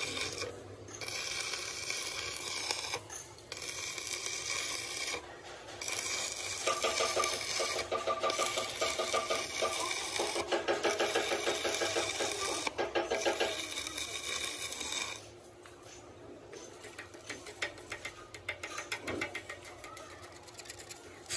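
A machine running with a steady high whine and a fast, even chatter, broken by short pauses every couple of seconds. It gets quieter after about fifteen seconds.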